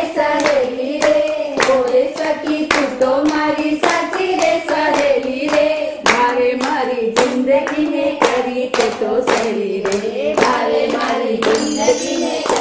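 Group singing over steady rhythmic hand clapping, about two claps a second.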